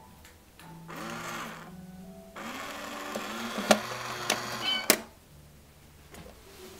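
Small electric motor of a toy cat coin bank whirring as its lid lifts and the mechanism inside runs, louder in a second stretch with a couple of sharp clicks, stopping abruptly about five seconds in.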